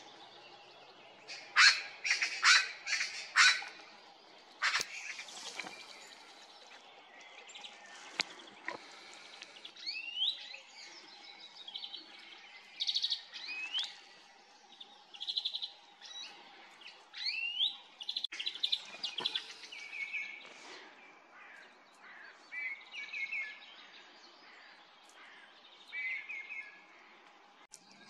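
A Eurasian magpie gives a short burst of harsh chattering calls a couple of seconds in. After that, European greenfinches sing on and off with short rising whistles, trills and buzzy notes.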